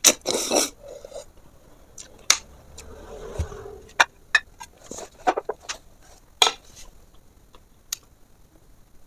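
A loud slurp as a cooked river snail is sucked from its shell right at the start. Then comes a short rubbing noise a few seconds in, and scattered sharp clicks and taps of snail shells and fingers against the plates.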